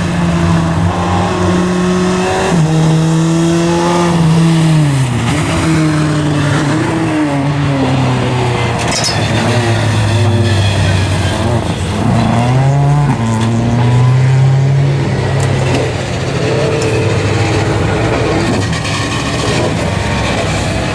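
Rally car engine at full throttle on a stage: the note climbs under acceleration and drops sharply on lifts and gear changes, several times over.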